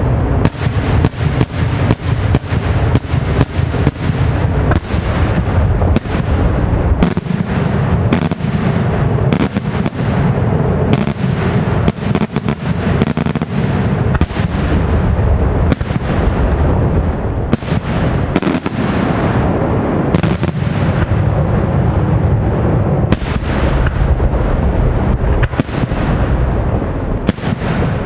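Daytime fireworks barrage: a rapid, near-continuous string of loud bangs from aerial shells bursting overhead, several a second, over a steady rumble of overlapping reports and echoes.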